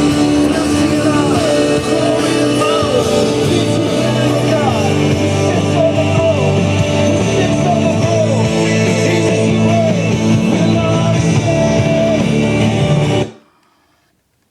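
A song with singing and guitar, played over a Yamaha CRX-TS20 micro stereo system. The music stops abruptly about a second before the end.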